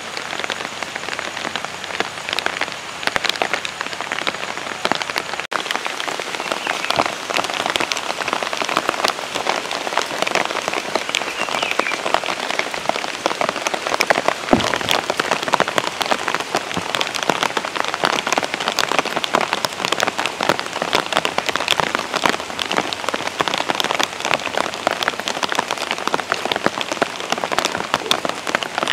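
Steady rain falling, a dense hiss thick with fine drop hits.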